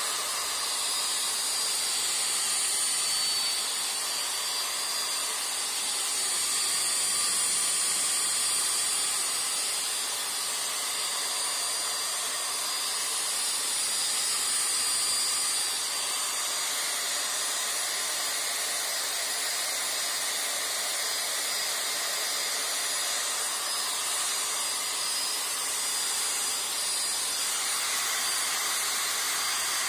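Electric drill running steadily with a buffing pad polishing a plastic headlight lens, a constant high whine over a hiss.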